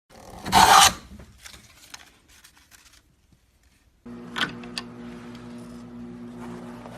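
A loud, short rushing burst, then scattered light clicks; about four seconds in, a machine starts a steady hum, with two sharp clicks soon after.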